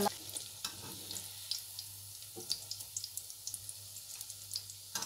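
Aloo (potato) shami kababs sizzling as they shallow-fry in oil in a non-stick frying pan: a steady hiss with scattered small crackles. There is a knock at the start and another about two and a half seconds in as patties are laid in and turned with a spatula.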